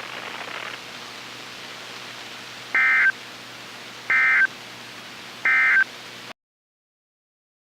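NOAA Weather Radio end-of-message signal: three short bursts of buzzy SAME digital data tones, about a second and a half apart, over steady radio hiss. They mark the end of the broadcast, and the audio cuts off soon after the third burst.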